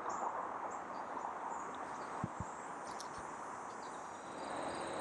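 Quiet outdoor ambience: a steady hiss of background noise, with a faint, high, steady insect trill coming in about halfway. Two or three soft low thumps sound near the middle.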